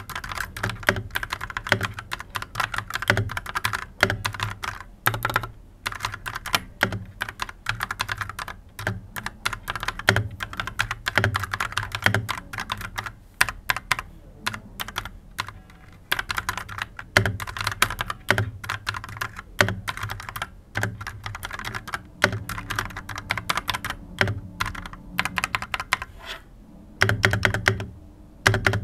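Fast typing on an AKKO 3108 RF full-size mechanical keyboard with Akko V3 linear switches: rapid key clicks and clacks in runs, with brief pauses between them.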